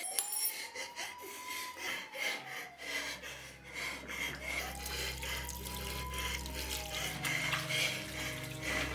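Water running from a tap and splashing into a basin. Under it, music with slow tones that rise and fall, and a low steady drone that comes in about three seconds in.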